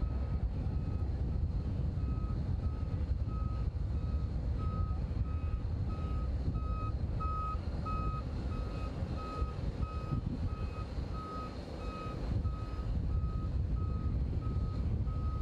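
Vehicle backup alarm beeping steadily, about one and a half beeps a second, growing louder toward the middle and then easing off, over a low steady rumble.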